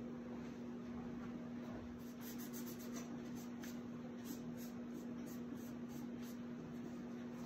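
Paper towel wiping and rubbing along a glued-on trim strip on a book spine, short scratchy strokes, two or three a second, starting about two seconds in. A steady hum runs underneath.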